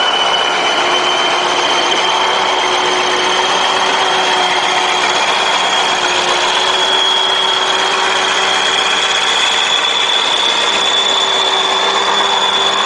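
Loaded logging truck's diesel engine and drivetrain running under load as it crawls through mud, a steady mechanical noise with a high whine that creeps slightly up in pitch.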